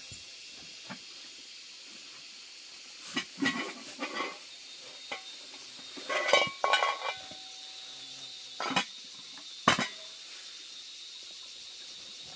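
Crinkling of a plastic bag in a few short bursts as a metal cooking pot is unwrapped, then sharp clinks of the pot and its lid being handled, over a steady high hiss.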